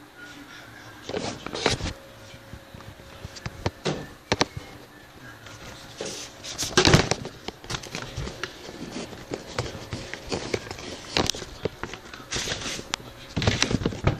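Handling noise: irregular rustling and crackling with scattered sharp knocks, in bursts about a second in, around seven seconds in and near the end.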